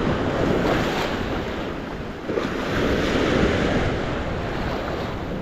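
Sea waves washing in on the shore, two swells of surf about a second in and again around three seconds, with wind buffeting the microphone.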